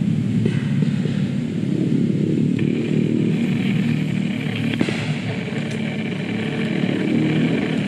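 A small engine running steadily, a continuous low drone, with a fainter higher hum above it.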